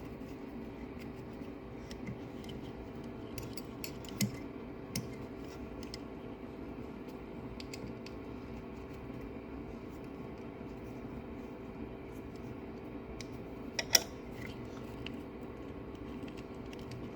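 Small metal clicks and taps of screws, parts and tools being handled during reassembly of a 3D printer's extruder, a few scattered ones with a sharp pair about fourteen seconds in and another at the very end, over a steady hum.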